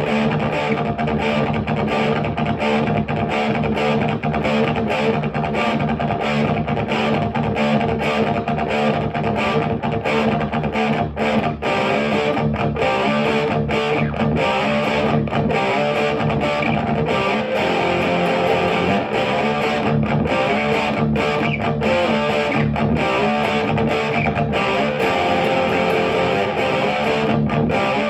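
Electric guitar, a 1986 Jackson Soloist Custom with a Seymour Duncan pickup, played through a Marshall JCM900 4502 combo amp with Celestion G12T-75 speakers. It plays a steady run of riffs with many short, abrupt stops.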